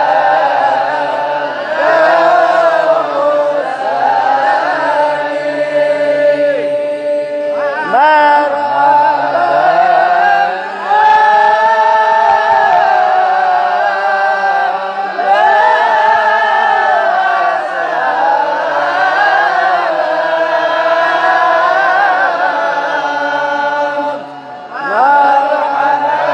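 A voice singing an Islamic devotional chant (salawat) in long melismatic phrases, held notes with ornamented turns in pitch, pausing twice briefly for breath.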